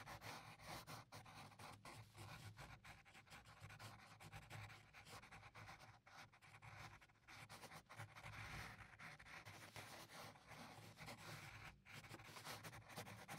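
Pencil scratching on paper in quick, irregular shading strokes; faint.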